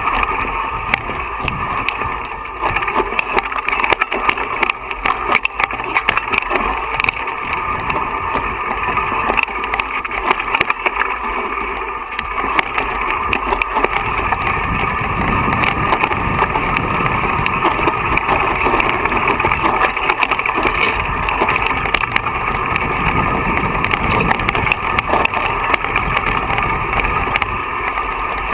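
Mountain bike riding fast down a rocky, loose-stone trail, heard from an action camera on the rider: tyres crunching over gravel with constant rattling and knocks from the bike, mixed with wind rumble on the microphone. The low rumble grows heavier about halfway through.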